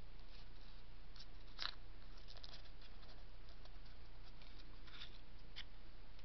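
Faint, scattered clicks and rustles as a strip of corrugated card is handled and drawn out of the jaws of rotary leather punch pliers, over a steady low hum.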